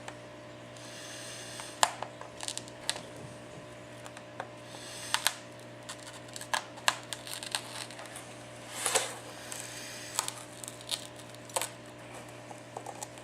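Irregular small clicks, ticks and brief crackles as cracked iPad digitizer glass is pried up and peeled away from its adhesive.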